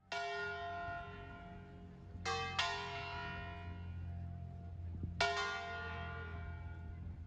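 Church tower bells ringing: four strikes, one at the start, two close together a little past two seconds in and one about five seconds in, each ringing on and fading slowly.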